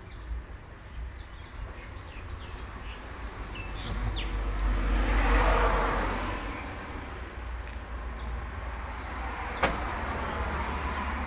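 A car passing by, its road noise rising to a peak about five seconds in and fading away, with a second, quieter pass near the end. A few faint bird chirps sound in the first few seconds.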